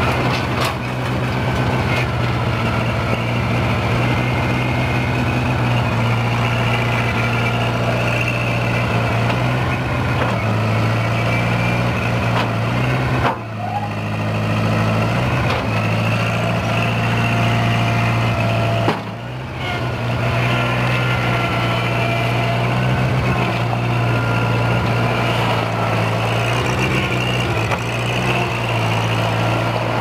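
New Holland L775 skid steer's engine running steadily as the machine is driven and its loader worked, with a wavering whine above the engine note. The sound drops briefly twice, about a third and two-thirds of the way in.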